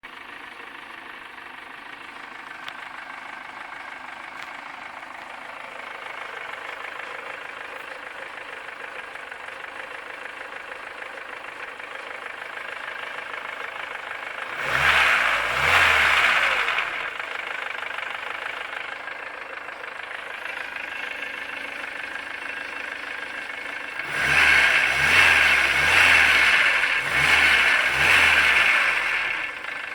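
VAZ 21083 1.5-litre eight-valve four-cylinder engine idling with a knock, revved briefly about halfway through and then blipped several times near the end. The owner puts the knock down to valve clearances that grew after the head rebuild and valve lapping.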